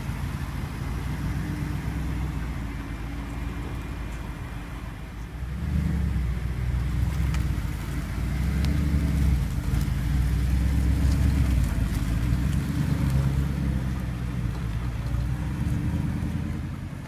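Audi R8's engine running with a low, steady note that swells louder about six seconds in, holds for several seconds and eases toward the end.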